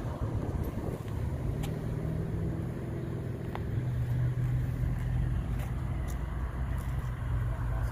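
Cars driving past on a highway: a steady low rumble of engines and tyres.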